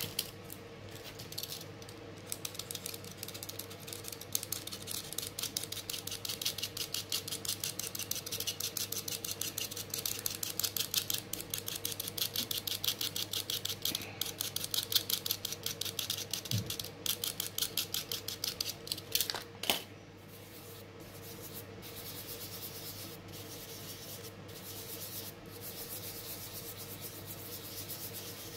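A soft pastel stick being scraped with a thin metal blade, giving quick repeated scratchy strokes as it is ground into powder over paper. About twenty seconds in this gives way to a softer steady rubbing of fingertips spreading the pastel powder across the paper.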